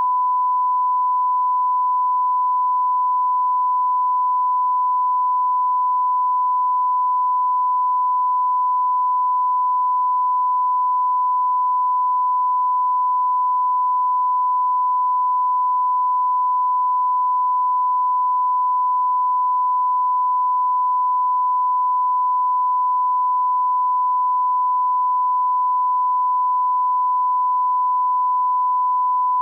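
Censor bleep covering profanity: a single pure, high-pitched tone held steady without a break.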